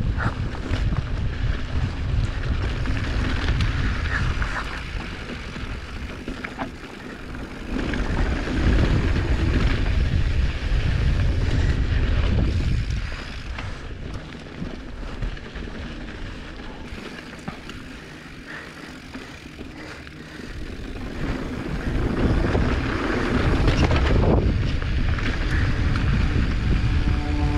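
Wind rushing over the microphone and mountain bike tyres rolling over a dirt trail during a downhill run, with occasional sharp clicks of bike rattle. The noise surges twice and eases in between as speed rises and falls.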